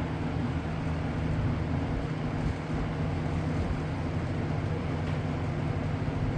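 Lakewood P-25 20-inch box fan running steadily on medium speed: an even whoosh of air with a low motor hum. The grilles rattle a little at this speed.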